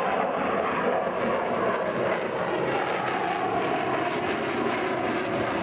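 Jet roar of a B-1B Lancer bomber's afterburning turbofan engines as it flies over. The noise is loud and steady, with a tone in it that slowly falls.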